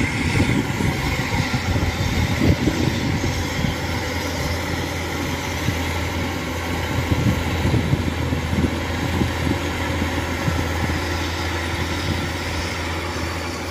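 Kubota DC-105X combine harvester running steadily as it cuts and threshes standing rice: a continuous low engine drone with a broad rushing noise over it, easing off slightly near the end as the machine moves away.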